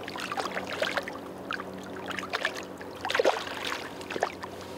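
A hooked zander splashing and thrashing at the water's surface as it is drawn to the boat, in several short irregular splashes over a steady low hum.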